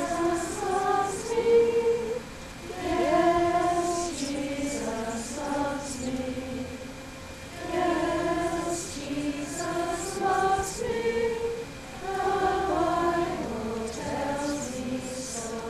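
A group of voices singing a slow hymn together, in long held notes grouped into phrases with short breaks between them.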